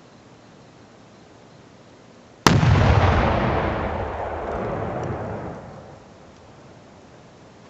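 About 1.5 pounds of Tannerite exploding when a rifle bullet hits it: one sharp blast about two and a half seconds in, followed by a long rumble that fades away over about three seconds.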